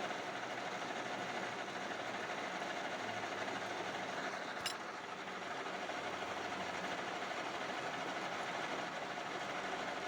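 Metal lathe running steadily while machining a pulley, a continuous hiss and hum with a steady whine, and one sharp click about halfway through.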